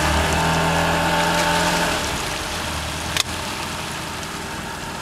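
Boat outboard motor running in forward gear after a shift out of reverse, pulling hard for about two seconds and then easing back to a lower, quieter speed. A single sharp click sounds about a second later.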